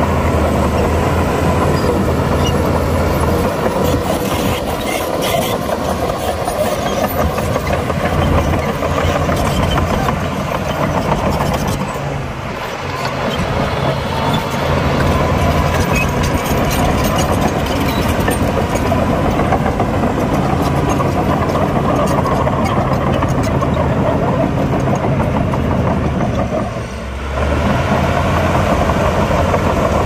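Heavy diesel engines of earthmoving machinery (bulldozer and dump trucks) running steadily under work, with a few short knocks early on and two brief drops in engine level, about halfway through and near the end.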